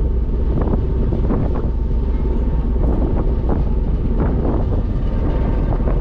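Ferry engine rumbling steadily, with wind buffeting the microphone on the open deck.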